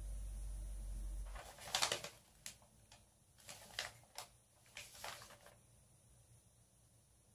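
Sheet of paper rustling and crinkling in several short bursts as it is handled and pressed against a face, after a low rumble that stops about a second and a half in.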